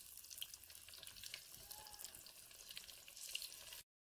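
Corn-flour-coated African catfish pieces deep-frying in hot oil in an aluminium kadai: a steady sizzle with many small crackles. It cuts off abruptly near the end.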